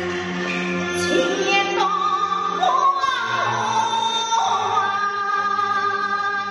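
Min opera (Fuzhou opera) singing: a voice holding long notes, with pitch slides between them.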